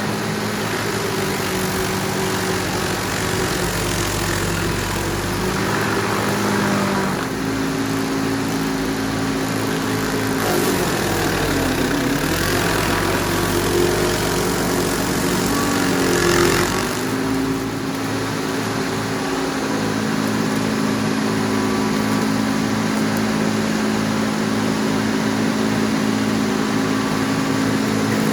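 Predator 56 tracked stump grinder running under load while grinding a poplar stump. The engine's pitch sags twice around the middle as the cutting wheel digs in, then recovers to a steady note.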